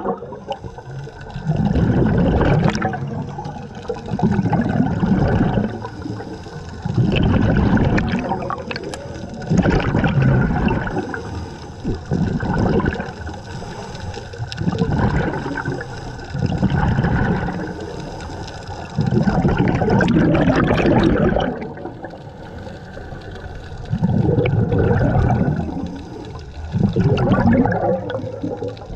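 Scuba diver breathing through a regulator underwater: bursts of exhaled bubbles about every three seconds.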